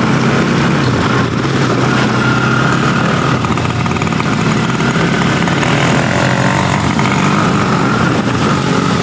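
Motorcycle engine running steadily under way on a rough, wet dirt track, picked up close from the handlebars, with wind and road noise over it.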